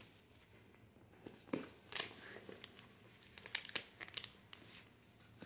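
Packaging of sanitary pads being worked open by hand: faint, scattered crinkling and tearing, with a few sharper snaps.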